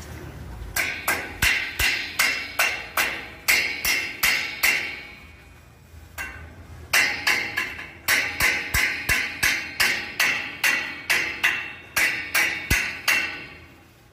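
Hammer striking a steel roof-frame tube: two runs of quick, ringing metal blows, about three a second, with a short break in the middle.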